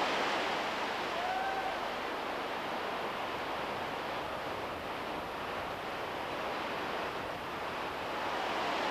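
Steady rushing noise of wind and distant white water in a deep river gorge, with a faint short distant call about a second and a half in.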